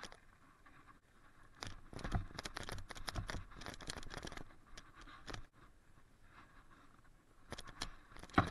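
Mountain bike (a Calibre Bossnut) rattling and clattering as it rides down a rough dirt trail, tyres scrabbling over the ground, heard through a poor action-camera microphone. A run of rattles starts about a second and a half in and lasts some four seconds, then another cluster builds near the end and finishes with a sharp knock.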